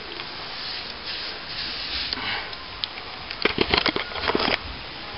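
A wet brush swishing over freshly applied plaster in a few strokes, then a rapid cluster of knocks and scrapes lasting about a second past the middle.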